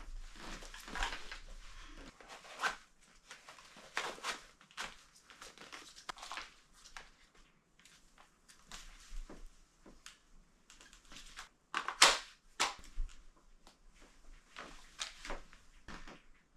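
Irregular rustling and knocking of things being handled, with a sharper knock about twelve seconds in.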